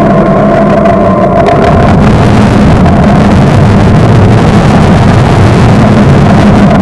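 Honda Gold Wing Tour DCT's flat-six engine running as the motorcycle rolls slowly to a stop and idles, heard loud and close through the dash cam's microphone. A steady whine present at first fades out about a second and a half in.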